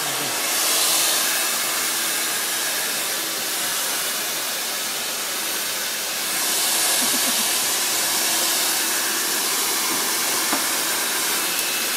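Hand-held pet hair dryer blowing steadily, a constant rushing hiss with a faint hum underneath, growing louder about half a second in and again for a few seconds past the middle.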